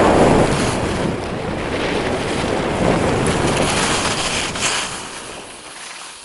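Wind rushing over the camera microphone along with the hiss of skis sliding on snow during a downhill run. It fades over the last two seconds as the skiing slows to a stop.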